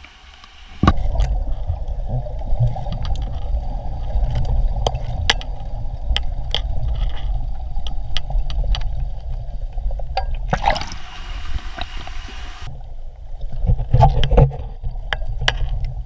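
Muffled underwater rumble of churning water in a waterfall pool, heard through a camera held below the surface. It starts about a second in, with scattered sharp clicks and a brief splashy burst about ten and a half seconds in.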